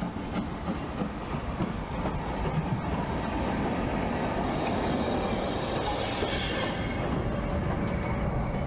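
Steam locomotive running through a station and passing close by: a steady rumble and rush of the engine and its wheels, the sound brightening as it goes past about six to seven seconds in.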